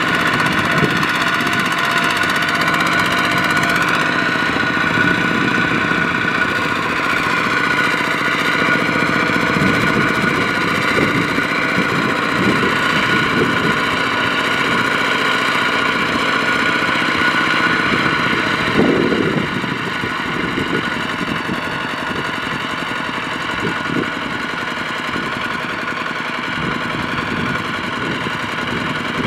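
Single-cylinder diesel engine of a two-wheel walking tractor running steadily under load as it struggles through paddy mud. About two-thirds of the way in it briefly rises, then settles to a quieter idle.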